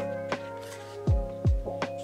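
Background music with a steady beat: deep kick drums and light ticks over held chords, with two kicks close together about a second in.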